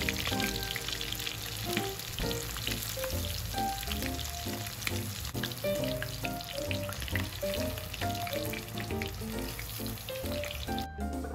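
Small sappa (Japanese scaled sardines) deep-frying in hot oil, a steady dense sizzle that cuts off just before the end, under light background music.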